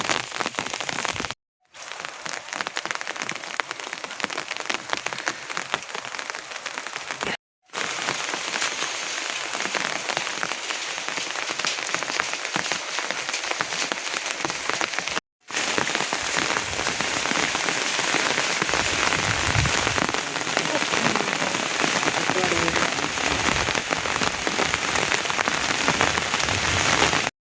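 Steady rain falling, a dense even hiss of drops. It cuts out abruptly for a moment three times, then resumes.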